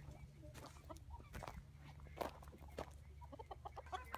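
Backyard chickens clucking quietly, breaking into a quick run of clucks near the end, over a few soft footsteps on straw-littered dirt.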